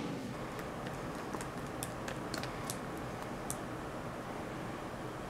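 A handful of light, sharp clicks and ticks, about eight spread over the first three and a half seconds, over a steady faint hiss.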